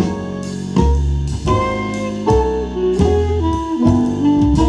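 Instrumental music with a deep bass line, held melody notes and regular drum hits, played through a pair of two-way wooden bookshelf loudspeakers driven by a TDA7297 class-AB stereo amplifier board and heard through the camera's microphone.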